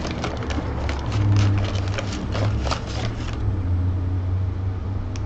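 Hands handling small tools and packaging: a run of light clicks and rustles for about three seconds, over a steady low hum.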